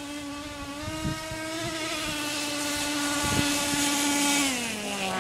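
Small engine of a gas-powered RC car running at a high, steady pitch, which drops about four and a half seconds in as it throttles down.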